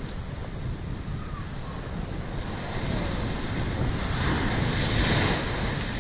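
Small ocean waves breaking and washing up the sand at the shoreline, with wind buffeting the microphone. The surf swells louder about four seconds in as a wave breaks and washes in.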